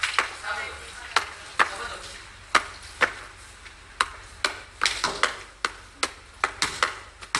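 Basketball bouncing on a court floor: sharp thuds with a short echo, spaced irregularly at first and quickening to two or three a second near the end.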